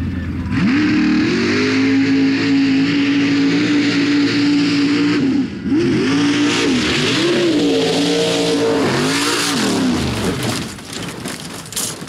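Pro Open class mud truck's engine at full throttle: it revs up sharply about half a second in and holds a high, steady pitch, then the revs rise and fall several times as the wheels spin and the truck bounces through the mud pit. The engine cuts off about ten seconds in, followed by scattered thuds and knocks as the truck rolls over.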